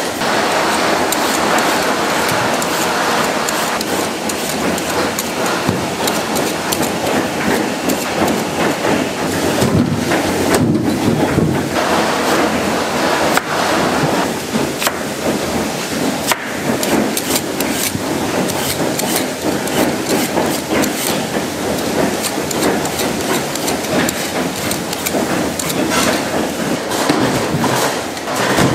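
Knives trimming Korean radishes on plastic cutting boards, with frequent sharp knocks and clatter throughout, over a steady wash of food-processing machinery noise.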